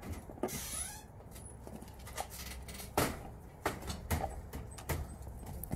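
Puppies moving about on a rug and concrete: scattered light clicks and scuffs of small paws, a few sharper ticks spaced about a second apart, over a faint steady low hum.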